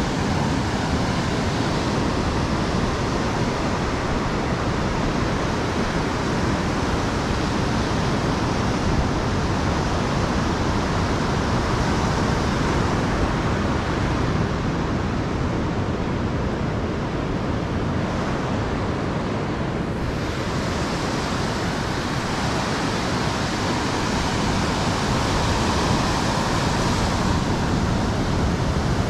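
Steady rushing noise of ocean surf, getting a little brighter and hissier about twenty seconds in.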